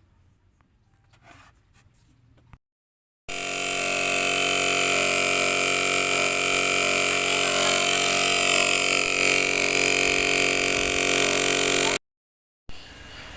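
Inverter refrigerator compressor running with a loud, steady hum and hiss. The hum starts suddenly about three seconds in and cuts off suddenly near the end, after a few seconds of faint sound.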